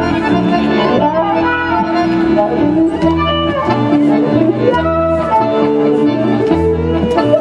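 Klezmer trio of violin, accordion and double bass playing a tune live, the accordion's sustained chords and melody over a bass line of low held notes.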